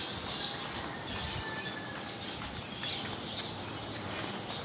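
Birds chirping in short bursts over a steady hiss of a wet street.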